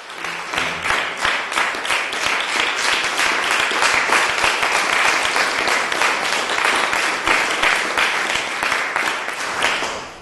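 Audience applause, many hands clapping in a dense, even patter that starts abruptly and dies away at the end.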